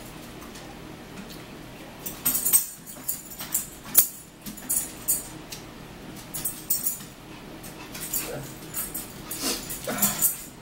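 Eating sounds at a dinner table: irregular clinks, clicks and scrapes of forks on plates, with one sharp click about four seconds in.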